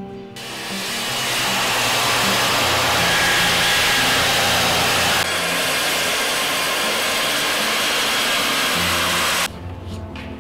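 Handheld circular saw cutting through a thick Douglas fir plank, its motor and blade noise running loud and steady for about nine seconds, then cutting off abruptly.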